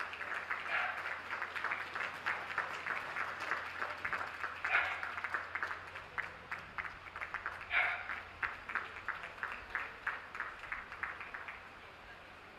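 Audience applauding, a dense patter of hand claps that thins out and stops near the end. Two brief louder calls stand out above it, about five and eight seconds in.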